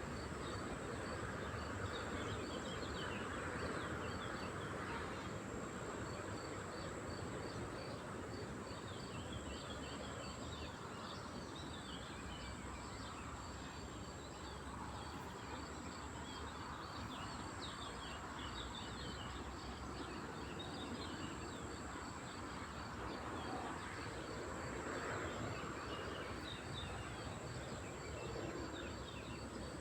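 Lakeside nature ambience: a steady high insect buzz and an evenly repeating insect chirp, with scattered short chirps of small songbirds over a steady low background hiss.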